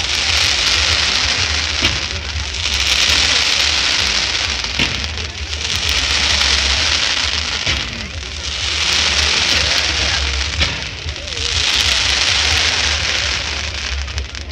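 Firework comets with glittering silver tails hissing and crackling as they rise, in swells about three seconds apart, with a few sharp cracks.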